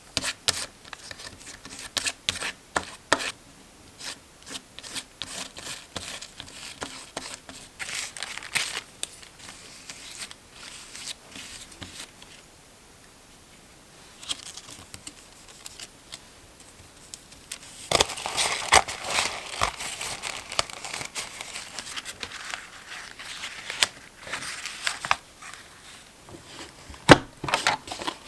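Paper crafting sounds: paper rustling and tearing, with many scattered taps and clicks and a longer, louder spell of rustling about two-thirds through.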